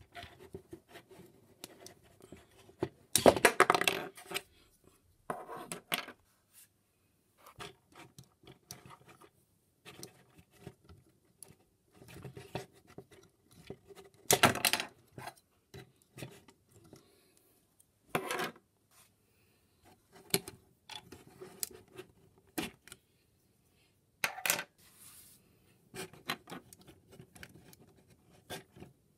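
Hard plastic parts of a Transformers Siege Ultra Magnus action figure clicking, clacking and scraping as it is taken apart and transformed by hand: scattered small clicks with a few louder clattering bursts.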